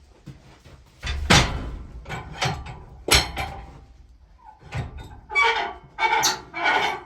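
Heavy knocks and thuds, then a quick run of metallic clanks with a ringing tone, as a log is loaded and handled on a portable sawmill's steel bed.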